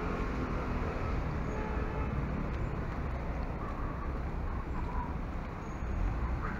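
Steady outdoor background noise, a low even rumble of wind on the microphone with street ambience.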